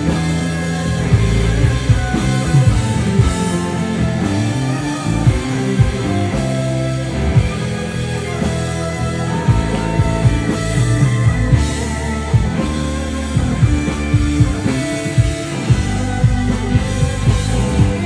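Rock band music: electric guitar over a drum kit with a steady beat.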